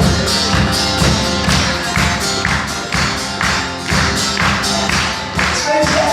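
Live rock band playing an instrumental passage between vocal lines, with a steady beat of about two strokes a second over sustained chords.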